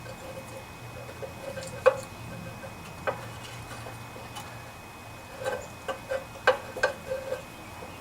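Sharp clicks and taps of small metal engine parts being handled and fitted as a carburetor and its spring go back onto a Briggs and Stratton Intek engine. There are a couple of single clicks, then a quick run of them in the second half.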